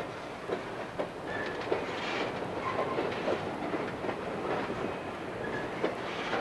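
Empty coal hopper cars rolling past, their wheels clicking and knocking over rail joints with a few brief high-pitched wheel squeals.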